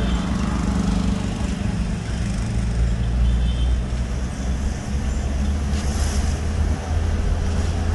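Engine and road noise of a moving vehicle heard from inside it: a steady low engine drone with tyre and traffic hiss.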